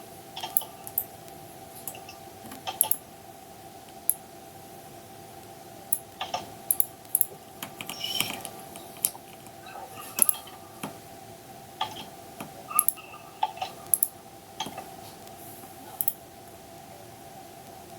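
Irregular clicks and taps of a computer keyboard and mouse, in scattered single presses and short quick runs, over a faint steady hum.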